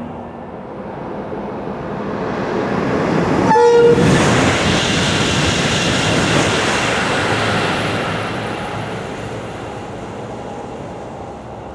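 High-speed train passing at speed: a brief horn blast about three and a half seconds in, then a rushing noise that peaks and slowly fades as the train goes by.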